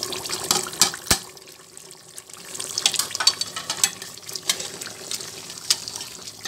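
Mutton and spices sizzling in a hot pressure cooker as ground nihari masala and green chillies go in and are fried, with a sharp knock about a second in and scattered clicks of the spoon and plate against the pot.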